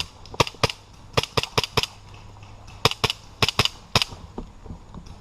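Airsoft gun shots: about a dozen sharp cracks in three quick groups, fired at an opponent spotted poking up from cover.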